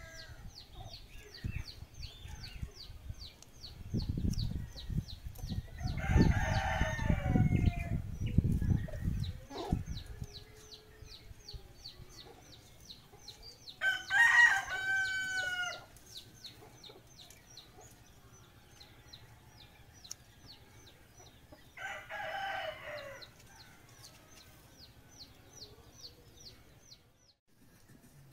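Roosters crowing, three crows about eight seconds apart, the middle one loudest. Under them runs a fast, even high-pitched ticking that stops near the end, and a low rumble sits under the first crow.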